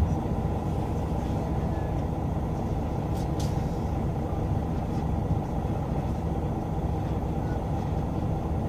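City bus engine and cabin noise heard from inside the bus: a steady low rumble while the bus creeps and stands. A brief knock comes right at the start.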